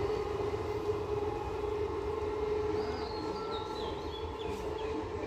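Electric multiple-unit local train running away down the line: a steady humming tone over a low rumble, slowly growing fainter. Short falling bird chirps in the second half.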